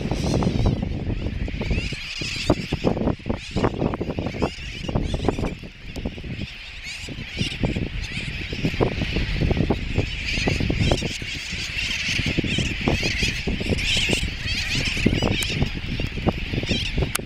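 A seabird colony calling: a dense, continuous chatter of many birds, with wind buffeting the microphone in gusts.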